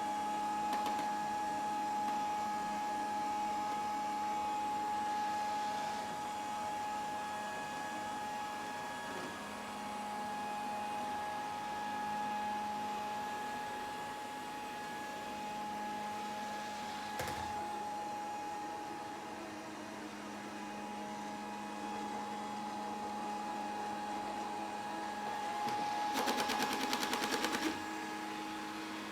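Grundig VCR 2131 robot vacuum running, with a steady motor whine. There is a single knock about halfway through, and a rapid rattle lasting a second or two near the end.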